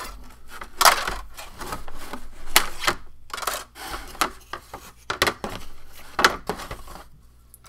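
Balsa wood sheets, sticks and blocks being handled and set down in a cardboard kit box: a string of light wooden clacks and knocks with rustling between them, the sharpest about a second in, near the middle and about six seconds in.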